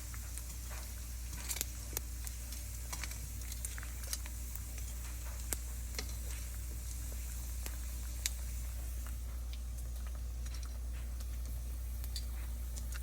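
Food frying in a pan: irregular crackles and pops of hot oil over a steady low hum.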